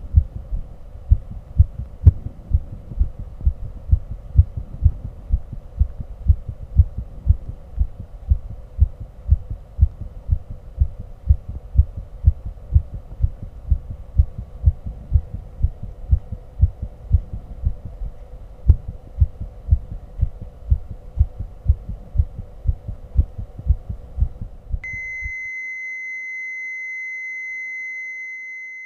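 Heartbeat picked up by a microphone on the chest: a steady run of low, dull thumps in regular succession, over a faint hum. About 25 seconds in the heart sounds stop and a continuous high electronic beep tone starts.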